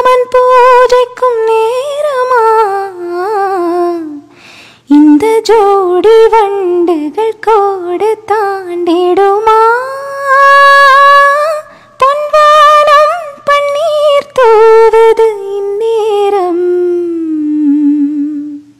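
A woman singing solo without accompaniment: a slow melodic passage of long, gliding, ornamented notes with short breaks between phrases. It sinks to a low held note near the end.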